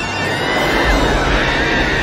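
Several people on a banana boat yelling and shrieking, their overlapping cries rising and falling in pitch, over film score music. A low rumble comes in about halfway.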